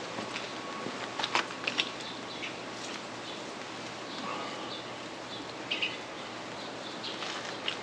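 Steady wind and light rain noise with scattered sharp crackles and rustles, the loudest cluster about a second in and a few more near six seconds.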